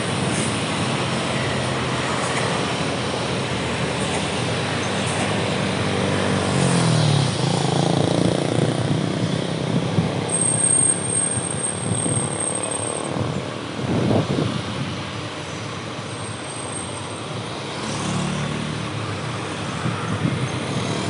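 Coach buses' diesel engines running past in convoy, a steady drone whose pitch drops about a third of the way in. A thin high whistle sounds for a few seconds around the middle.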